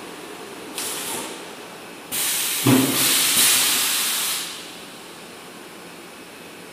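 Luggage vacuum forming machine cycling: a short hiss of air about a second in, then a louder hiss lasting about two and a half seconds, with a clunk partway through.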